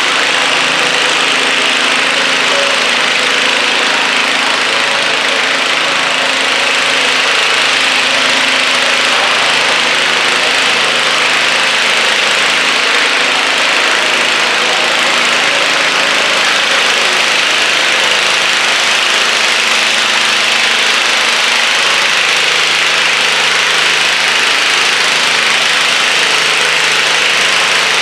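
John Deere garden tractor's small engine running steadily under load as it drags a weighted stoneboat across a dirt track, with a constant hiss over the engine note.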